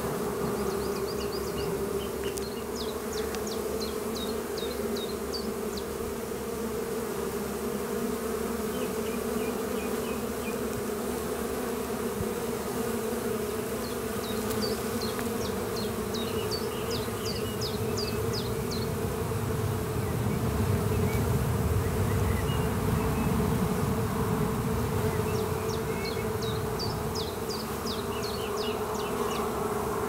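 Honeybees humming at a busy hive entrance: a steady buzz of many workers flying in and out, swelling a little about two-thirds through. It is the even hum of an active, gentle colony.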